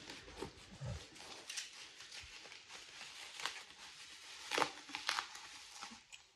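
A dog snuffling and nosing about close to the microphone, with a few soft clicks and rustles, all fairly faint.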